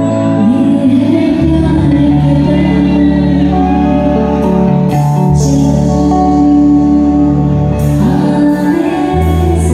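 Live amplified band music: a woman singing over sustained chords and electric bass, the bass notes changing about every four seconds.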